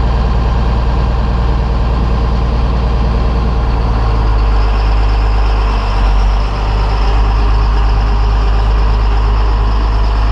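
John Deere 4455's six-cylinder turbo diesel engine running steadily at idle, its pitch rising slightly about four seconds in.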